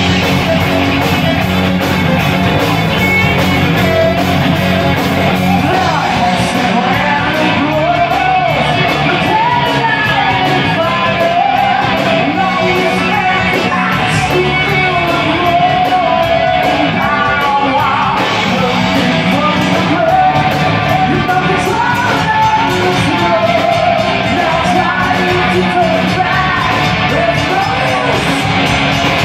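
Live rock band playing loud: electric guitars, bass and drums, with a voice singing and yelling over them from about six seconds in.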